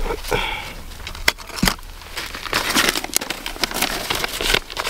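An old paper map being handled and unfolded: irregular crinkling and rustling of paper, with a few sharp crackles.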